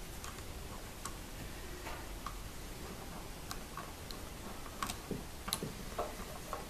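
Light metallic clicks and taps of bandsaw guide-assembly parts being handled and fitted together by hand, irregular and spaced out, with a few louder knocks about five seconds in.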